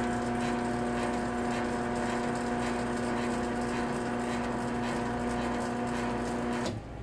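Chamberlain 1/2 HP garage door opener motor running with a steady hum and regular clicking, which the owner puts down to worn bearings; the unit is also starting to vibrate. It shuts off abruptly near the end.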